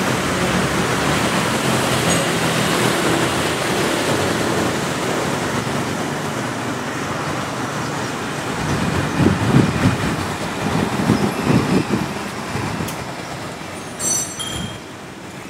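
Street traffic noise: a steady rush of road vehicles, with a louder vehicle passing about nine to twelve seconds in and a brief high-pitched tone about fourteen seconds in.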